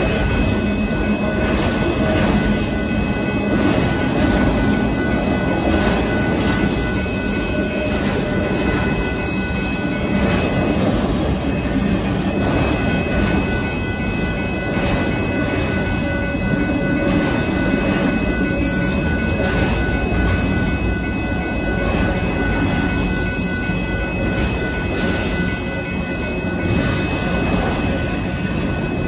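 A Union Pacific freight train of auto rack cars rolling past: a steady, loud rumble and rattle of wheels on rail, with a few thin steady high tones over it.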